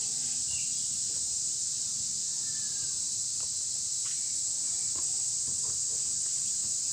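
Steady high-pitched insect chorus, with a few faint bird chirps.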